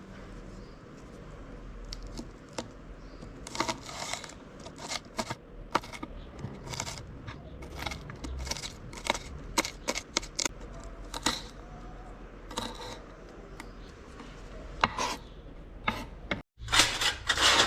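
Kitchen utensils clicking and tapping irregularly. Near the end the sound cuts out briefly, then comes back as a denser clatter and scraping.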